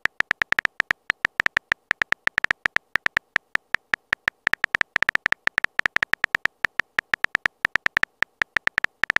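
Rapid keyboard typing clicks from a texting-story app, about six or seven short, sharp ticks a second at uneven spacing, one for each letter appearing in the message being typed.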